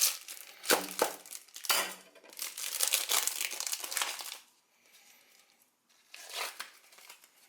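Ivory soap bar wrappers being torn open and crumpled, a dense crinkling and tearing that stops for over a second partway through, then starts again briefly.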